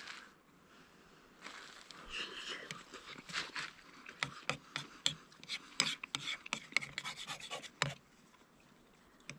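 Eating from a metal camp pot with a plastic spork: the spork scrapes and clicks against the inside of the pot, with chewing and mouth noises. It starts a second or so in and goes quiet shortly before the end.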